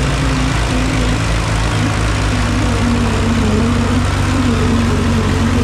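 Tractor diesel engines running hard under load while two tractors, an Indofarm 3055 and a Hindustan 60, pull against each other, the engine note wavering slightly up and down.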